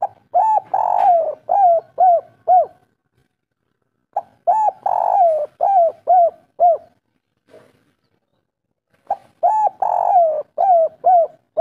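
Spotted dove cooing its kuk-3 song three times. Each phrase is a short note, a longer note, then three quick falling 'kuk' notes, with a pause of about a second and a half between phrases.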